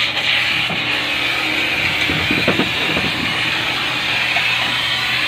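Gas welding torch burning with a steady hiss, with a few faint clicks about two and a half seconds in.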